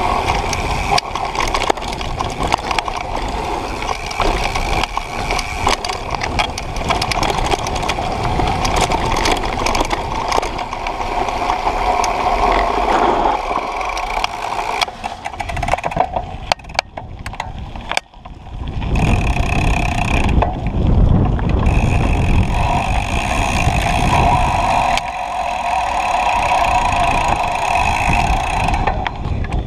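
Propain Tyee mountain bike riding fast over dirt and gravel, heard from a camera mounted on the bike. Knobby tyres rumble over the ground, the bike rattles and clicks over bumps, and a steady buzz runs under it. The noise drops away briefly about eighteen seconds in, then picks up again.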